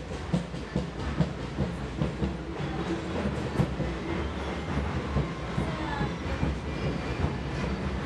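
Train running along the rails: a steady rumble with the clickety-clack of wheels over rail joints, about two to three knocks a second, and a brief falling wheel squeal about six seconds in.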